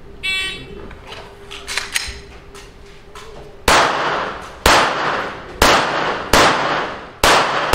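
A shot timer's start beep, then, a few seconds later, five gunshots in quick succession about a second apart, each trailing a short echo.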